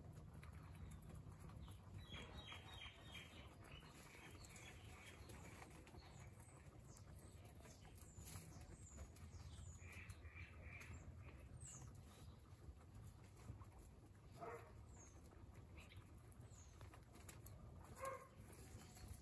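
Near silence with faint, scattered small-animal chirps and squeaks: a quick run of high chirps a couple of seconds in, another run about halfway, and a short squeak near the end.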